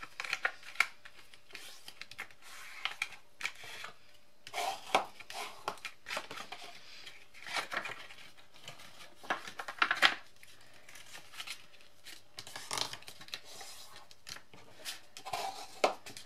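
Scored scrapbook paper being folded by hand along its crease lines and pressed flat: irregular rustling and crinkling with several sharper crackles.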